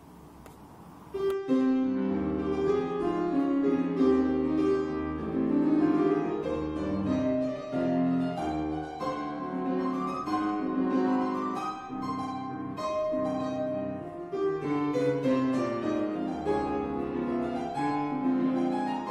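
Grand piano playing a classical accompaniment passage on its own, starting about a second in after a brief pause.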